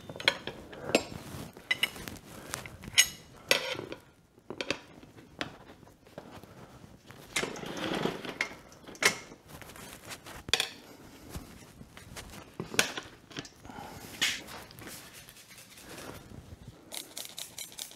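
Metal tire irons clinking, knocking and scraping against a dirt bike wheel rim while a tubeless rear tire is pried off, in an irregular string of clinks. A quick run of even ticks comes near the end.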